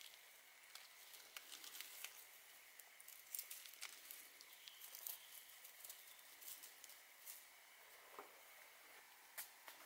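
Faint, scattered crackles and ticks of fingers picking at dry soil, leaf litter and fine roots around a shrub's root ball.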